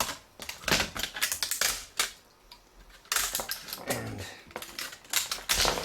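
Clusters of sharp clicks and clattering from a laptop motherboard and parts being handled on a work surface, with a quieter pause about two seconds in.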